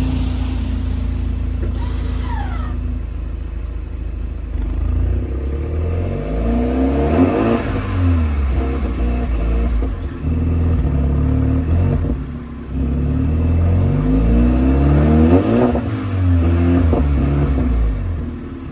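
BMW G21 320i's turbocharged four-cylinder petrol engine on its stock exhaust, running after a cold start and revved several times. The engine note rises and falls back, with the two biggest revs about seven and fifteen seconds in.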